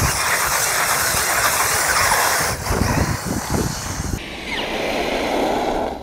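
Traxxas X-Maxx brushless-electric RC monster truck driving over gravel: a loud, dense rushing of tyres and drivetrain on loose stones, with some crunching thuds about halfway through.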